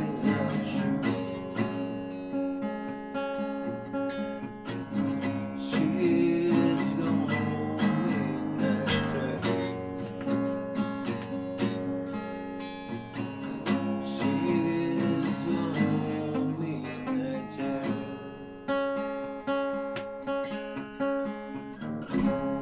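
Acoustic guitar being played, with picked and strummed chords ringing on continuously and a brief break just before the end.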